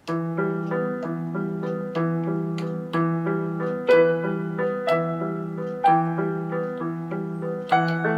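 Piano music starting abruptly, a steady pattern of struck notes with a stronger accent about once a second.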